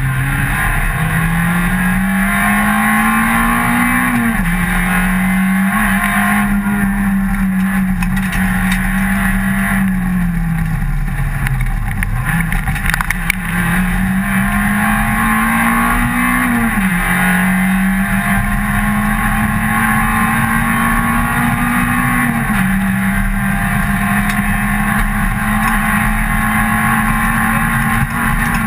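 Rally car engine heard from inside the cockpit, pulling under load. The revs climb and drop back sharply at gear changes twice, sag once as the car slows about midway, and hold steady in between.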